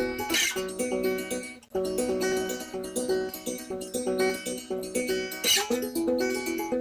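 Music: a plucked guitar playing a repeating pattern of notes, with two short hissy bursts about five seconds apart and a brief break about one and a half seconds in.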